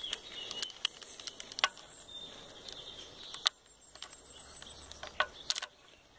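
Scattered small clicks and rustles from hands and a hand-held camera moving around the engine bay, over a faint steady hiss. The sharpest ticks come about one and a half and three and a half seconds in, with a brief cluster a little after five seconds.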